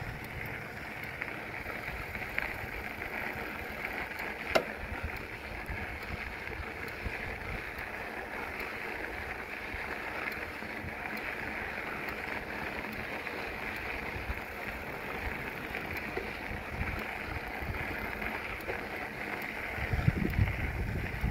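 Wind rushing over the microphone while riding a bicycle along a trail: a steady hiss with a low rumble, buffeting harder near the end. One sharp click about four and a half seconds in.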